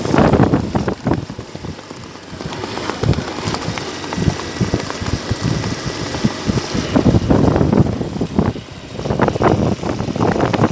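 Wind buffeting the microphone in irregular gusts over a running vehicle engine, recorded while moving alongside a cantering horse.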